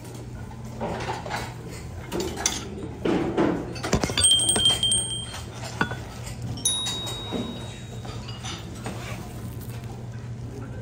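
Buffet dishes and serving utensils clinking, with two clinks that ring on, about four seconds in and again just before seven seconds, over a steady low hum.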